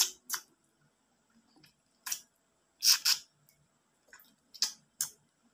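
Wet slurping and lip-smacking of someone eating ripe mango, sucking the flesh off a slice, in about seven short bursts spread unevenly with quiet between them.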